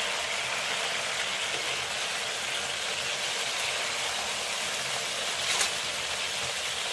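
Marinated muru fish shallow-frying in hot oil in a nonstick pan, a steady sizzle, with one short click about five and a half seconds in.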